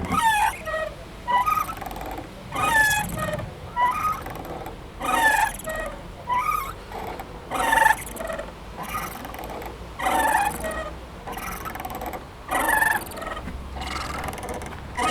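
Squeaking playground swing: the metal chain hangers squeal in short gliding creaks, recurring every second or two as the swing moves back and forth.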